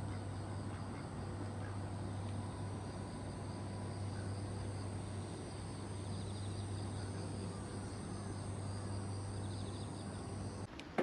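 Steady outdoor ambience with a continuous high-pitched insect trill and a low steady hum. Both cut off abruptly near the end, followed by a single sharp click.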